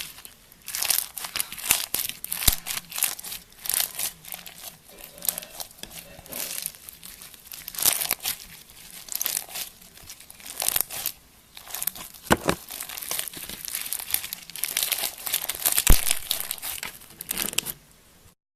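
Slime with orbeez water beads mixed in, squeezed and worked by hand: a dense, irregular run of crackling and popping clicks that stops suddenly near the end.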